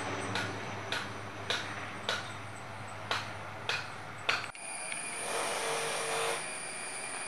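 Distant twin-turboprop airliner droning steadily as it climbs away, with sharp clicks about every half second. About four and a half seconds in, the sound changes abruptly to a steady high-pitched ringing with a second or so of hiss.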